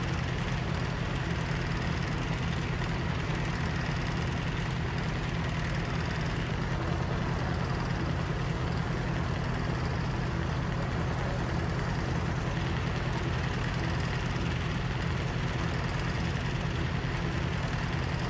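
Engine driving a vintage Frick circular sawmill through its belt, running steadily under load as the blade works through a large, knotty red oak log.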